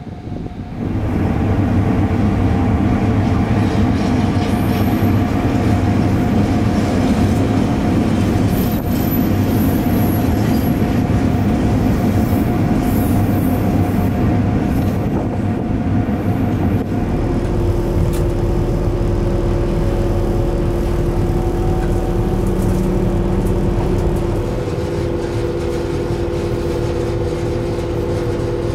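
Freight train running, with steady rumbling and rattling of its wagons on the rails. Later this changes to a steadier electric hum with a few held tones from the Eurosprinter class 120 electric locomotive, heard from inside its cab.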